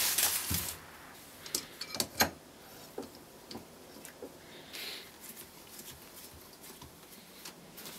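F-clamp being fitted and screwed tight on a glued-up walnut block: a brief rustle at the start, then scattered light clicks and knocks from the clamp's jaw and screw.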